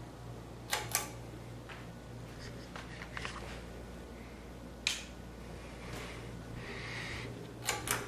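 Ceiling fan running with a low, steady hum, broken by a few sharp clicks: two about a second in, one near the middle and two near the end.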